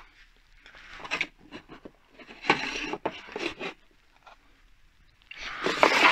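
A plastic lead-bending tool scraping along the edge of a thin aluminium sheet, pushed along it to fold the sheet over. There are three passes: about a second in, around three seconds in, and near the end.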